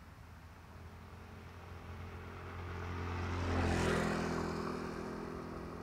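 A motor vehicle passing by: its engine grows louder to a peak just before four seconds in, then slowly fades away.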